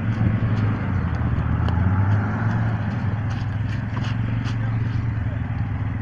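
4x4 SUV engine running steadily at low revs while the vehicle crawls through mud, with scattered light clicks over it.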